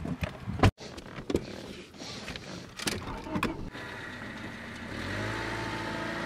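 Several sharp clicks and knocks from handling a car's door and bodywork, then from about five seconds in a steady hum with a high tone over it.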